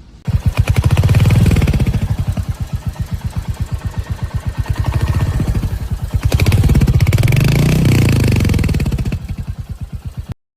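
Royal Enfield Hunter 350's 349 cc single-cylinder engine running through its exhaust, a steady thump of pulses at idle, blipped up and back down twice, the second time about six seconds in. The sound cuts off suddenly near the end.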